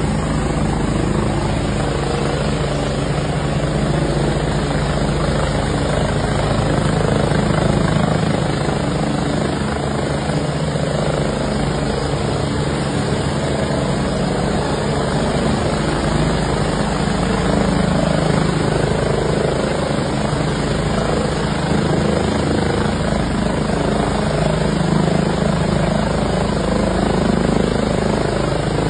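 Helicopter hovering close by, its rotor beating steadily and loudly without pause.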